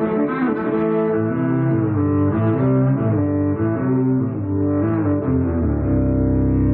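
Electric violin bowed in a melody of held notes, over a deeper bass layer that comes in about a second in and grows fuller near the end.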